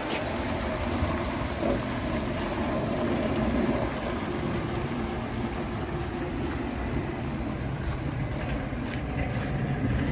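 Steady outdoor street noise from passing traffic, with a few faint clicks near the end.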